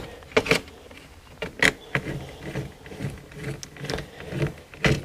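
Irregular small clicks and scrapes of a screwdriver tightening a wire into a screw terminal on the alarm panel's terminal block, with handling noise in between.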